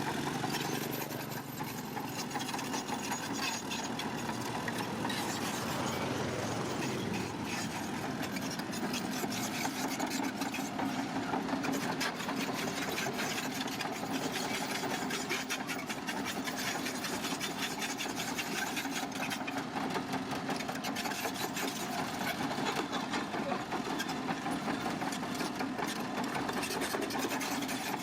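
Bulldozer's diesel engine running steadily with a fast, even clatter.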